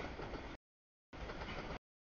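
Freight train rolling past a grade crossing: a broad rumbling noise, heard in two short chunks of under a second each, cut by complete audio dropouts of the stream.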